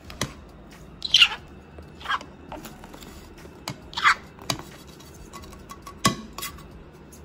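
Granulated white sugar sliding off a plate into a metal cooking pot: several short grainy swishes as the sugar pours, with a few sharp clicks in between.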